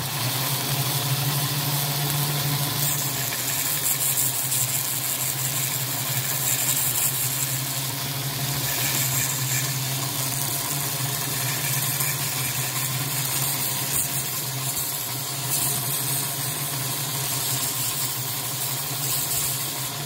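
Homemade mini belt sander, a small brushed DC motor on an 18-volt cordless battery, running steadily with a low hum after its speed is turned up at the start. A wooden dowel is pressed against the moving sanding belt, adding a hiss of grit rubbing wood in stretches.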